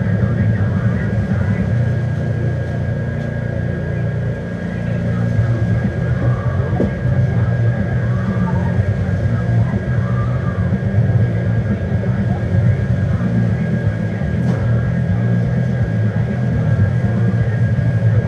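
A loud, steady low rumble with a thin, constant high whine over it.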